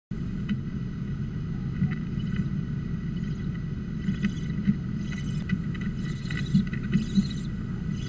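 A steady low rumble with scattered knocks and scrapes, barn owls shifting and flapping on the wooden floor of a nest box.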